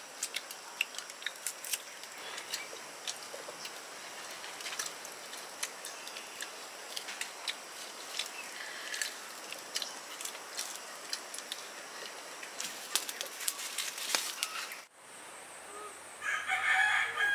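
Domestic chickens clucking, with a rooster crowing near the end, over a steady stream of sharp clicks.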